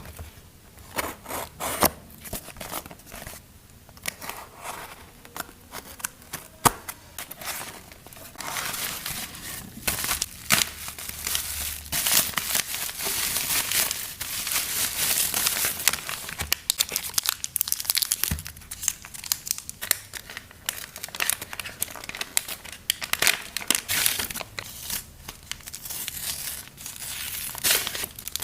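Packaging being handled and opened by hand: repeated crinkling and tearing with sharp clicks and crackles, denser in a few long stretches.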